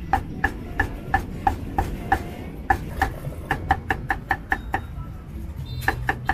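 Steel cleaver chopping on a thick round wooden chopping block, cutting braised meat and cucumber: quick regular strokes about three a second, each with a short metallic ring, getting faster after about three seconds. The chopping stops about five seconds in, then two or three more strokes come near the end.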